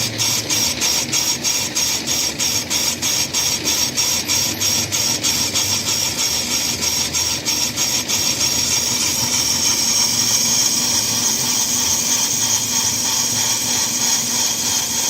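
Brake drum lathe running, cutting an Austin-Healey brake drum: a regular pulsing about four times a second, which gives way about eight seconds in to a steady high hiss.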